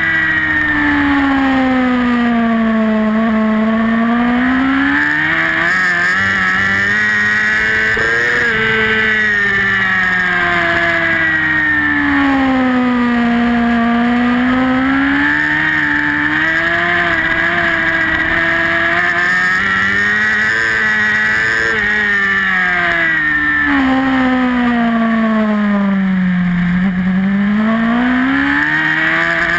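Racing superbike engine heard from onboard at full race pace: its note falls three times as the bike slows for corners and climbs again as it accelerates out, with a few sudden changes of pitch between the dips.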